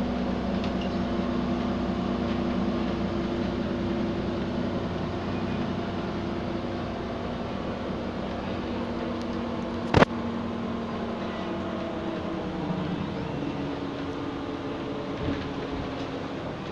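Iveco Crossway bus heard from inside the passenger cabin while driving: a steady diesel engine and drivetrain drone whose pitch falls in the second half. One sharp knock about ten seconds in stands out above the drone.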